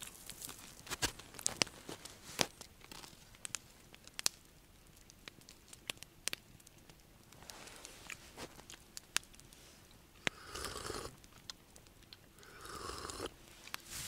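Small wood campfire crackling with scattered sharp pops, then a plastic food bag being handled, rustling and crinkling in two short bursts in the last few seconds.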